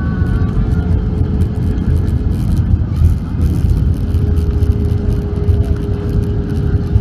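Airbus A320 landing rollout heard from inside the cabin: a loud, steady low rumble from the wheels on the runway and the engines, with a steady hum over it. The ground spoilers are up, so the aircraft has touched down and is braking.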